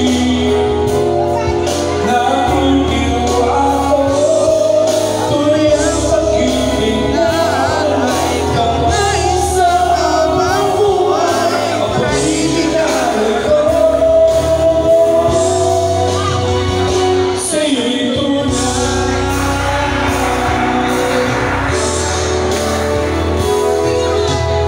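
A solo voice singing a song into a microphone over instrumental backing with a steady bass line.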